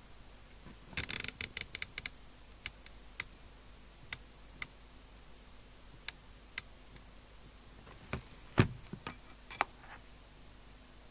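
Sharp clicks from controls being worked on a radio repair bench: a quick run of clicks about a second in, then scattered single clicks, and a louder knock with a few more clicks near the end. A faint steady hum sits underneath.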